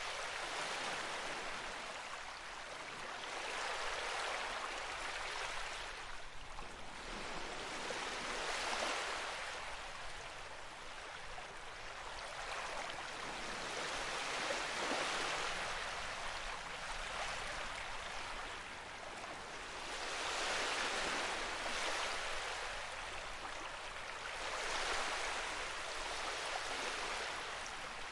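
Running water of a forest stream, a steady rushing hiss that swells and eases every few seconds.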